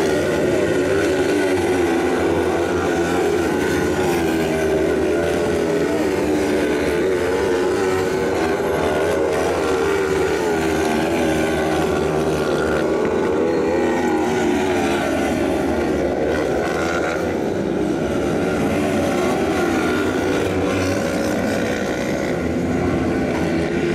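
Engines of several 500 cc kart cross buggies racing on a dirt track, running hard with their pitches rising and falling and overlapping as the cars pass.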